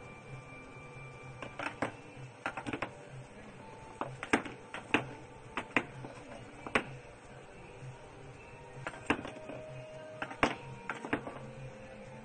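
Irregular sharp clicks and light knocks, a dozen or so spaced unevenly, over a faint steady hum.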